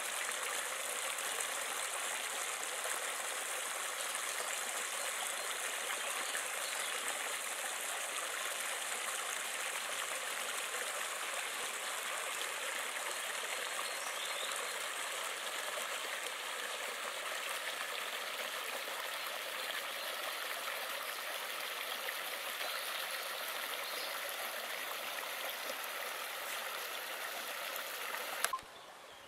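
Stream water babbling steadily over stones in a small riffle. It cuts off suddenly near the end.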